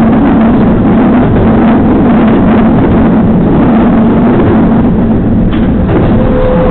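Steady, loud running rumble of a moving electric train, heard from inside a crowded carriage. A faint, steady higher tone joins it near the end.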